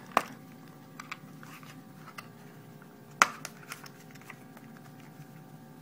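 Fingers working at a small, tight cardboard box to get it open: scattered light clicks and taps of cardboard, with a sharper click about three seconds in.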